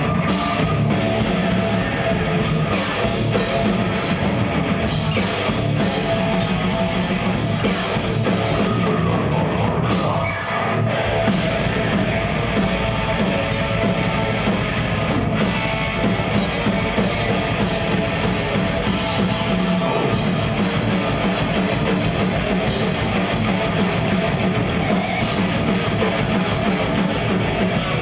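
Live heavy metal band playing loud and dense, with distorted electric guitars and a pounding drum kit. About ten seconds in there is a momentary drop before the full band carries on.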